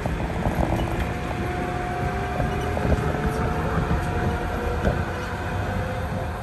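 Airport people-mover tram heard from inside its cabin: a steady running rumble with a faint electric drive whine that rises in pitch as it picks up speed.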